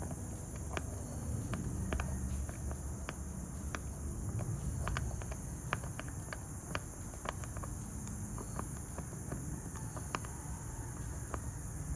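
Light, irregular clicks of small metal lock-cylinder parts being handled during rekeying, over a steady high-pitched background drone.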